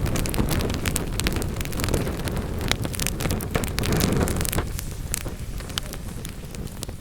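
Wood fire burning in a fireplace: a steady low rush of flames with frequent sharp crackles and pops, the low rush easing off about two-thirds of the way through.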